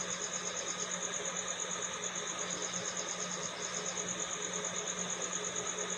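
Steady machine hum with a high whine that pulses evenly about nine times a second: a small motor running.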